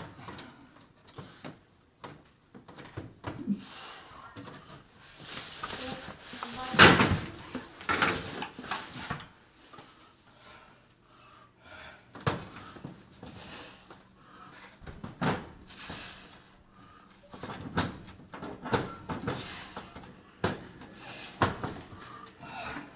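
Oven door and hinge hardware being worked into place by hand: irregular metal knocks, clanks and scraping, with several sharp knocks spread through and the loudest clatter about seven seconds in.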